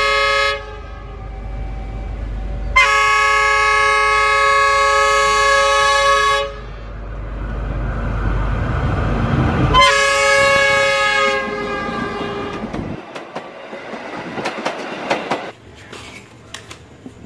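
Diesel locomotive's multi-tone air horn sounding three times: a short blast at the start, a long blast of about four seconds from about three seconds in, and another of about two seconds at about ten seconds in. Under the horn runs the low rumble of the approaching train, which stops about thirteen seconds in.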